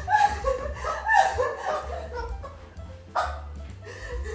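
A woman laughing, with short excited vocal sounds, over background music.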